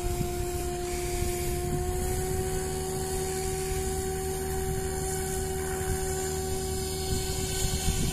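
Electric RC helicopter (SAB Goblin Kraken 580, XNova Lightning 1120kV motor) spooled up and idling on the ground before lift-off. It gives a steady motor and rotor whine that rises slightly in pitch about two seconds in, with wind buffeting the microphone.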